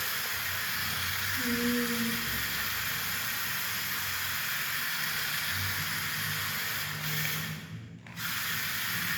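Toy remote-control car's small electric motor whirring as its tyres spin and slide on a wet floor, a steady hiss that drops out briefly near the end.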